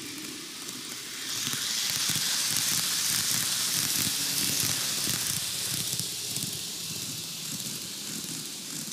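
TOMIX N-gauge 733 series 3000 model electric train running past on superelevated curved track: a hissing rattle of the running gear that swells about a second in, is loudest for a few seconds, and fades away again.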